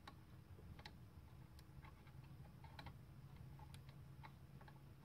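Faint, irregular light clicks, roughly one a second, from the gear train of a Multi-Products open-frame pinball motor being turned by hand to check that everything spins freely after reassembly.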